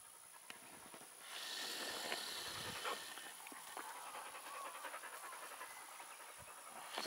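A dog panting close by, a rhythmic breathy sound that starts about a second in and keeps going.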